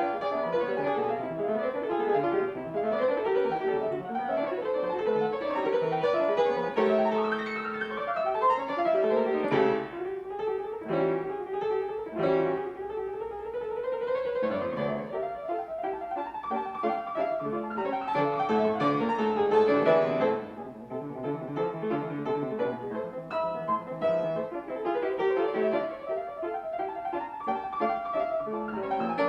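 Yamaha G3 grand piano, restrung and fitted with new tuning pins and new German hammer heads, being played: a continuous passage of many notes with quick sweeping runs near the middle.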